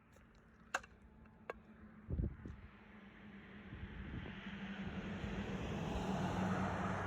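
A road vehicle approaching, its engine hum and tyre noise growing steadily louder over several seconds. Near the start come a couple of faint clicks and a low thump.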